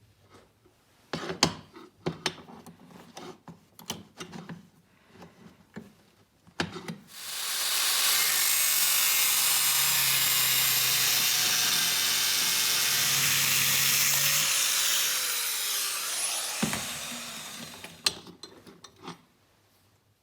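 A few clicks and knocks of steel parts being handled, then a power tool cutting through the steel vise handle: a loud, steady cutting noise for about eleven seconds. Its motor tone then falls as the tool winds down.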